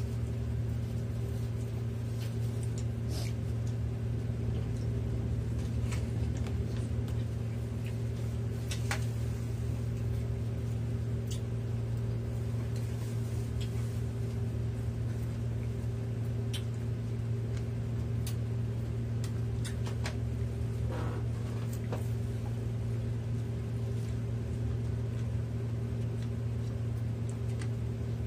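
A steady low hum runs throughout, with a few scattered light clicks and taps of someone eating.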